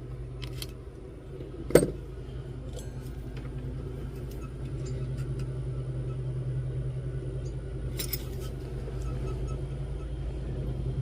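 Small metal clicks and clinks of jeweler's hand tools at the bench: one sharp click about two seconds in and a short cluster of clinks near eight seconds, over a steady low hum.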